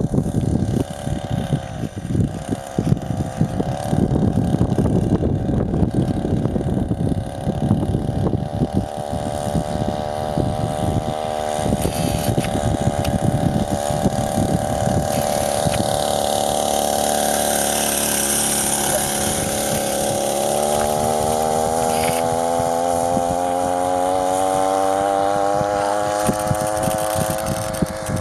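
Chainsaw two-stroke engine fitted to a homemade moped, running under way. Its note holds steady through the middle, then climbs steadily in pitch over the last several seconds as it speeds up.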